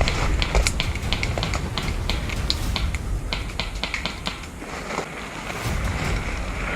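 Many small, irregular clicks and snaps over a low rumble on the microphone, thinning out toward the middle and picking up again near the end.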